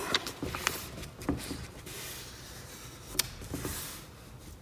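A sheet of A4 paper being handled and folded on a wooden table: soft rustling and sliding with a few light taps, the sharpest about three seconds in.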